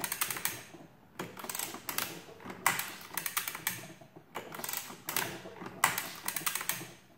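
Mechanism of a 1916 Burroughs Class 3 adding machine being worked by hand: its metal sliders, rockers and pawls clatter and ratchet in about five separate bursts of sharp clicks.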